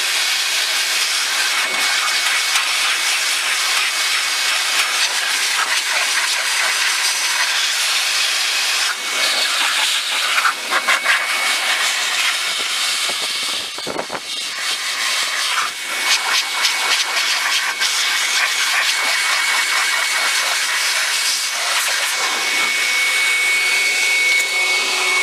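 Metro dog-hair dryer blower running with a steady rushing hiss and a faint high motor whine. It is blasting leaf and grass debris out of a lawn-tractor engine's cooling fins. The airflow dips briefly about halfway through.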